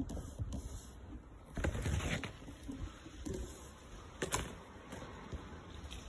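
Handling noise from a smartphone mounted on a pole as it is moved about: irregular knocks and scraping rustles, loudest about two seconds in, with a sharp knock a little after four seconds.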